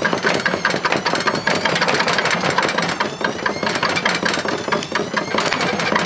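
Washing machine drum and motor spinning up, a rapid, continuous clatter of knocks as the drum chafes and rubs, which the owner thinks is starting to seize, with a faint whine rising in pitch as it speeds up.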